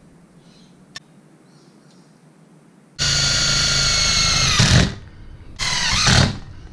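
Cordless impact driver driving screws through a door hinge into a steel rocket stove. A steady high whine runs for about two seconds and winds down as the screw seats. After a short pause comes a second, shorter run.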